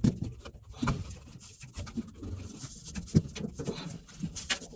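Irregular clicks, taps and scrapes of hands fitting a hose clamp onto a washer's drain outlet hose, with one sharper click about three seconds in.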